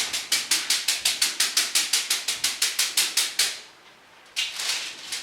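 A fast, even rattling shake, about six or seven strokes a second, that stops about three and a half seconds in and starts again, slower, near the end.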